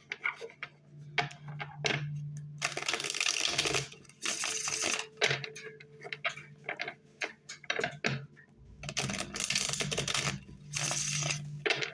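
A deck of tarot cards being shuffled: quick papery clicks and taps, with several dense riffling bursts of about a second each, two in the first half and two near the end.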